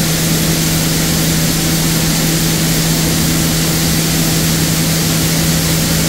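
Dal mill machinery running steadily: a constant loud drone, a steady hum with a hiss over it.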